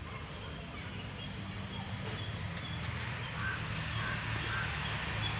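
Steady outdoor ambience: an even hiss over a low hum, with a few faint short chirps around the middle.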